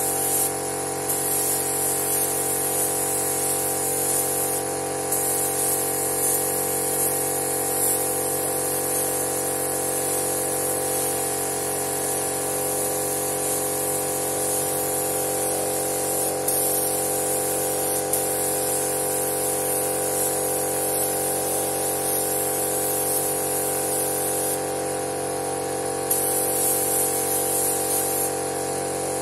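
Gravity-feed paint spray gun hissing as paint is sprayed onto a car bumper, in long passes broken by a few brief pauses where the trigger is released. A steady mechanical hum runs underneath.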